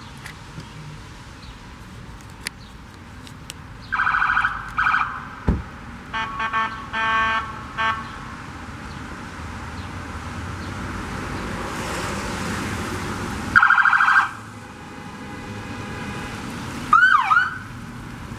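Horns honking in several short blasts as a police-escorted line of cars approaches. A police SUV passes with tyre hiss on the wet road, and near the end its siren gives a couple of quick whoops.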